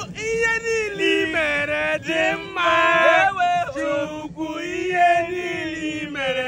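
A man singing loudly in long, drawn-out notes that slide up and down in pitch, with short breaks between phrases.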